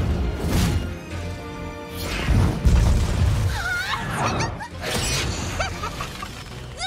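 Animated fight sound effects over dramatic background music: deep explosion booms and crashes, the heaviest a little after two seconds in, along with sharp impacts and a shattering sound.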